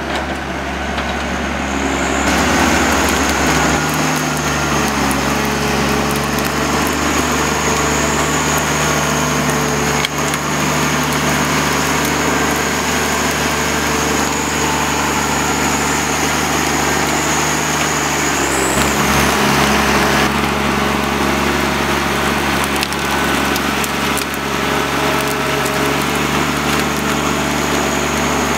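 John Deere 1110D forwarder's diesel engine running hard, rising in revs about two seconds in, with a steady high whine over it; about two-thirds through, the engine note drops and shifts.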